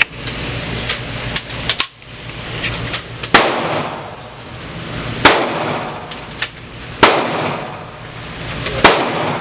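9mm gunshots at a shooting range: four loud, evenly spaced shots about two seconds apart in the second half, each with a short echoing tail, and fainter shots and cracks before them.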